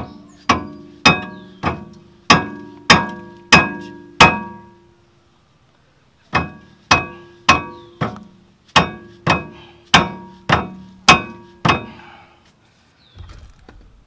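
Mallet blows on the steel rear brake caliper and carrier of a VW GTI Mk5, each hit ringing briefly: eight steady strikes about every 0.6 s, a pause of about two seconds, then ten more at the same pace. He is hammering at the assembly to free a long, rusty carrier bolt that has no room to come out.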